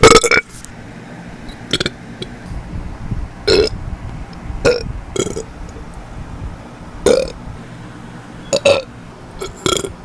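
A person burping repeatedly: one loud burp right at the start, then a string of shorter burps every second or so.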